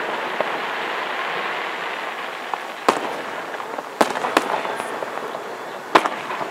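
Aerial fireworks: the crackling of a burst fading away over the first couple of seconds, then four sharp shell bursts spread over the rest.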